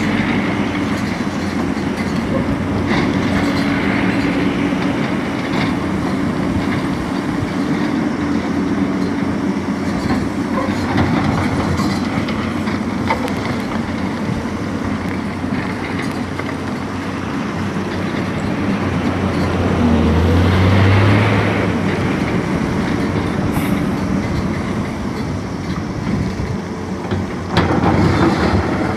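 Hydraulic excavators cutting a road into a hillside: steady diesel engine noise with clattering, swelling louder for a couple of seconds about two-thirds of the way through.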